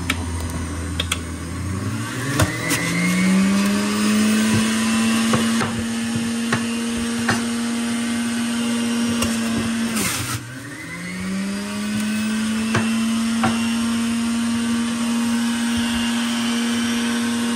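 Electric centrifugal juicer motor spinning up about two seconds in and running at a steady high speed, its speed dropping suddenly about ten seconds in and climbing back up, with scattered sharp knocks over it.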